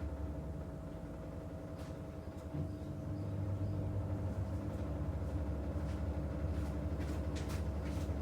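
Washing machine running: a steady low motor hum with a constant mid tone above it, growing deeper and louder about two and a half seconds in. A few light clicks come near the end.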